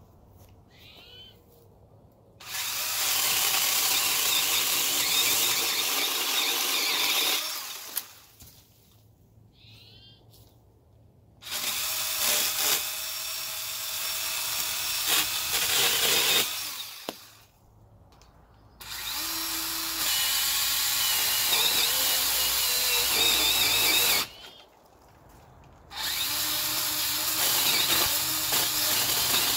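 DeWALT 20-volt XR brushless cordless pole saw running in four bursts of about four to six seconds each, its chain cutting into small tree branches, with short pauses between the bursts.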